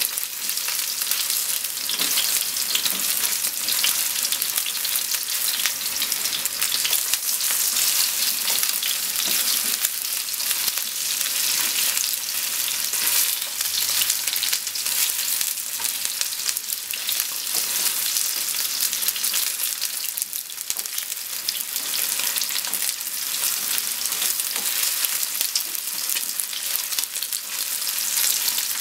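Potato-starch-coated chicken pieces sizzling steadily in hot oil in a frying pan, with a dense crackle of spattering oil, as they are turned with chopsticks.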